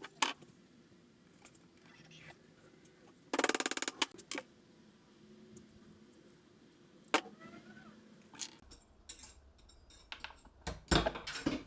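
Sheet metal and hand tools being handled on a workbench: scattered metallic clicks and knocks, with one short, rapid rattling burst about three seconds in.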